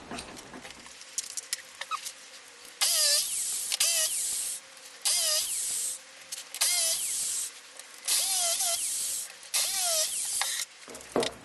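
Tapered bit boring cone-shaped holes in softwood whitewood: five separate bursts of cutting, each about a second long, with a squeaky sliding pitch as the bit bites.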